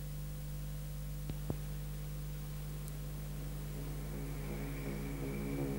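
Steady mains hum and hiss from an old videotape playback, with two short clicks about a second and a half in. Music starts to fade in near the end.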